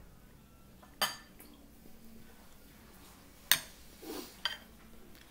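Metal spoon clinking against a dish: two sharp, ringing clinks, one about a second in and a louder one about three and a half seconds in, with a lighter tap just after.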